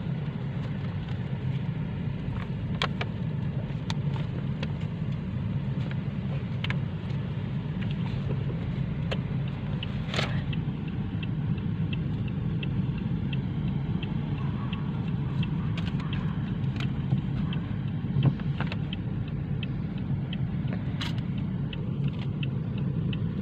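Steady road and engine noise of a moving car heard from inside the cabin, a low rumble, with a few sharp clicks and a faint regular ticking in the second half.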